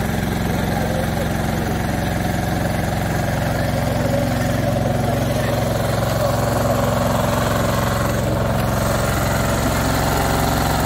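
An engine running steadily at idle, a constant low hum, with faint crowd voices underneath.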